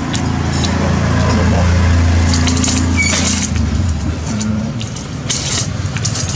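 Street traffic: a motor vehicle's engine rumbles past, loudest about two seconds in and fading by four seconds. Near the end, metal spoons clatter in a steel cutlery cup.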